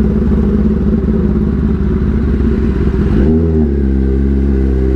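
Kawasaki ZX-10RR inline-four running through a short SC Project titanium exhaust at low road speed. About three seconds in, its pulsing note changes to a steady, even hum.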